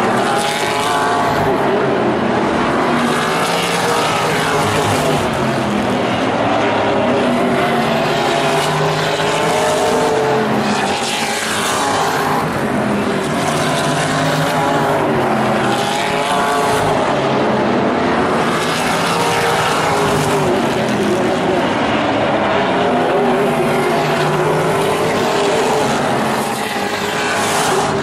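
A field of vintage modified race cars running at speed around an oval. Their overlapping engine notes rise and fall over and over as the cars pass and accelerate through the turns.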